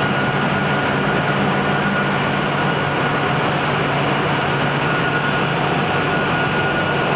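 Steady machinery noise: an even mechanical rush with a constant high whine and a low hum, part of which drops away about two and a half seconds in.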